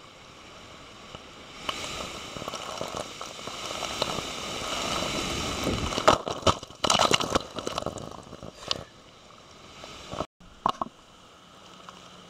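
Seawater surging up through a hole in the shoreline lava rock, building into a rush that washes over the camera about six seconds in, with loud splashes and crackles of water striking the microphone. The rush falls away, and after a brief cutout near the end only a quieter wash of surf remains.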